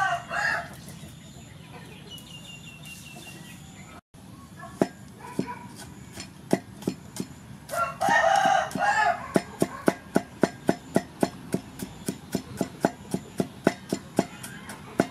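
A cleaver chopping garlic on a wooden block: scattered knocks at first, then fast, even chops about three a second through the second half. A rooster crows twice, once right at the start and again about eight seconds in.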